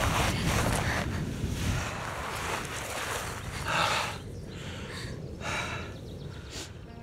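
A young woman breathing heavily in uneven, gasping breaths, about one breath a second, as she gets over a fright. A low rumble of wind on the microphone underlies the first two seconds.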